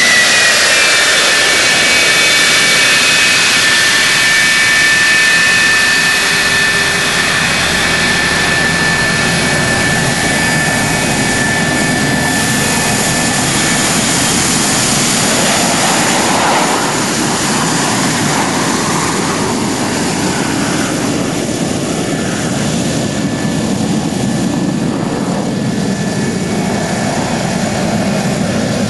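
Lockheed F-104 Starfighter's J79 turbojet running: a loud jet roar with a high whine that dips slightly in pitch about a second in and then holds steady. It becomes a little quieter about halfway through.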